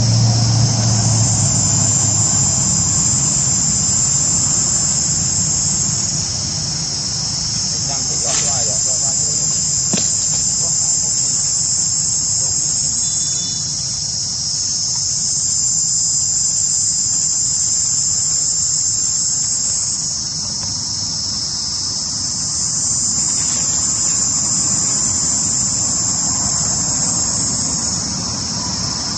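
Steady, loud chorus of insects shrilling high, swelling and easing slightly in long waves, over a low background rumble.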